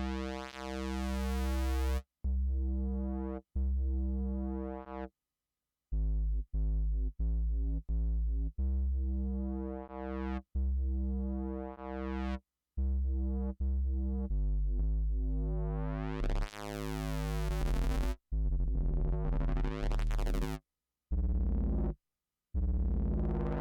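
Electronic synthesizer music from a hardware setup of an MPC One with Novation X-Station and Mono Station synths: sustained synth notes over a deep bass, phrases that cut off abruptly with short gaps between them. Twice the filter opens and the sound grows steadily brighter, around the middle and again later.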